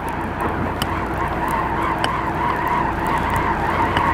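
Steady mechanical running noise: a low hum under a mid-pitched whine that wavers up and down several times a second, with a few faint clicks.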